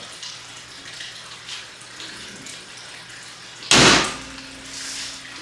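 Light rustling and handling noises as kit parts and packaging are moved, with one loud, brief burst of noise a little under four seconds in.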